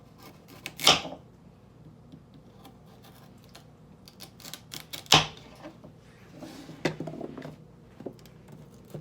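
Kitchen knife chopping vegetables on a cutting board: scattered taps and clicks, with two louder knocks about a second in and just after five seconds in.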